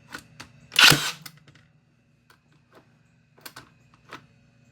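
Brad nailer firing a single nail into wood trim about a second in, a sharp shot, with a few lighter clicks and taps from the tool being moved along the trim.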